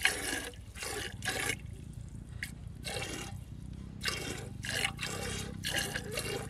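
Hand milking a cow: jets of milk squirting from the teats into a part-filled metal can, each stream splashing into the froth, in short strokes about twice a second as the hands alternate.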